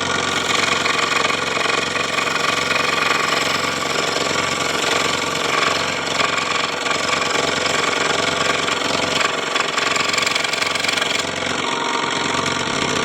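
A power tool's electric motor running steadily at one even pitch.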